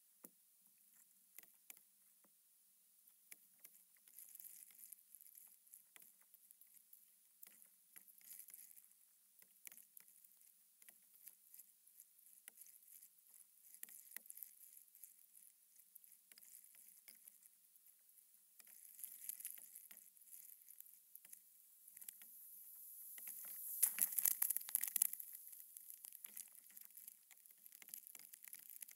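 Faint, rapid patter of small water splashes and clicks from paddling a stand-up paddleboard, swelling into a louder rushing splash about 23 seconds in that lasts a couple of seconds.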